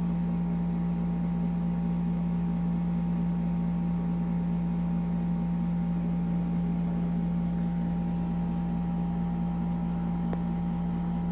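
Steady, unchanging low mechanical hum, as of a motor or fan running in the room.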